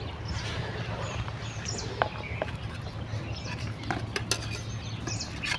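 Light clinks of steel kitchenware as oil is poured into flour in a steel mixing bowl, with a few sharp ticks about two seconds and four seconds in. Birds chirp faintly in the background.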